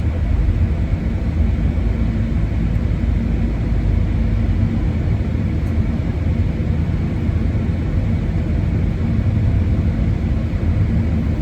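A car driving: a steady, loud, low road rumble that does not change.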